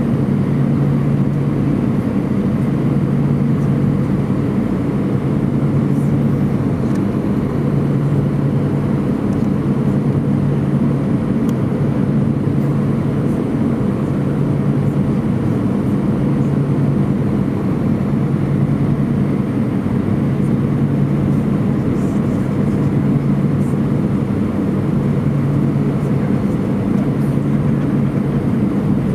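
Airbus A320 jet engines running steadily, heard from inside the cabin during the climb after takeoff, with a low hum that swells and fades every few seconds.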